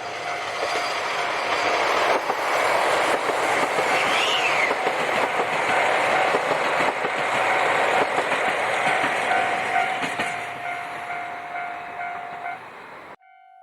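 A train rolling past over a level crossing, its wheels clattering over the rails, while the crossing's warning bell rings steadily with a pulsing tone. The sound cuts off suddenly near the end.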